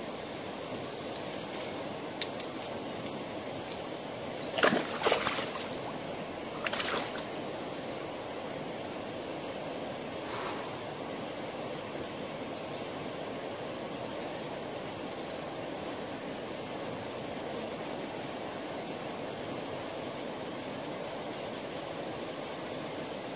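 Hooked hampala barb splashing at the water's surface by the bank: a short cluster of splashes about five seconds in and a smaller one near seven seconds. Behind it, a steady high insect hum and river ambience.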